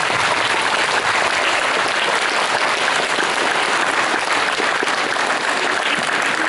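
Audience applauding: many people clapping together in a steady, sustained round of applause.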